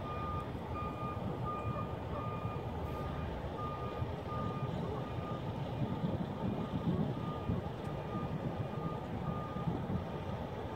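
Backup alarm of a Canadian Pacific hi-rail truck beeping steadily, about two beeps a second, as the truck reverses on the rails pushing a gondola. Under it is the low running noise of the truck.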